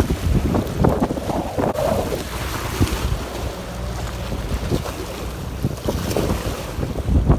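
Wind buffeting the microphone over small waves washing and splashing against the rocks at the water's edge.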